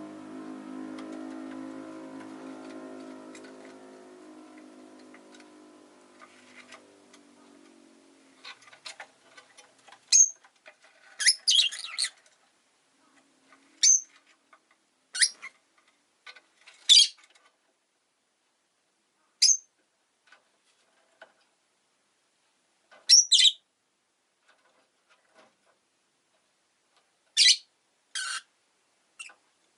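Rosy-faced lovebird giving short, sharp chirps, singly and in quick pairs, about a dozen scattered through the second two-thirds. Before them a low droning hum fades out over the first several seconds.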